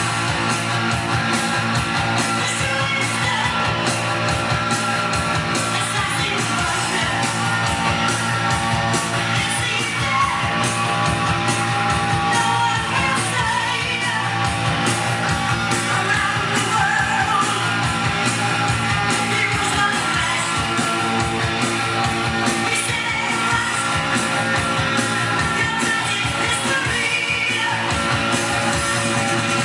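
Rock song with a singing voice and guitars, playing steadily.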